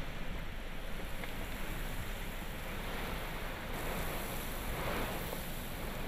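High winds of a severe storm blowing in a steady rush, buffeting the microphone with a low rumble.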